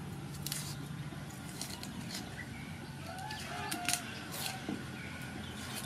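Irregular short crackling clicks of a knife peeling dry papery skin off an onion, with faint bird calls in the background.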